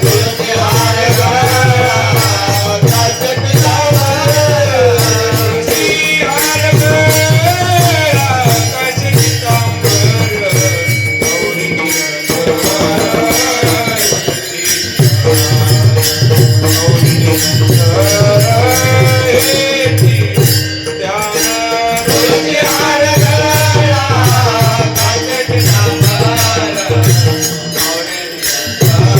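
Varkari devotional singing: a male voice sings a traditional melody with long gliding ornaments, over rhythmic low strokes of a mridang (pakhawaj) and a dense metallic jingle of hand cymbals.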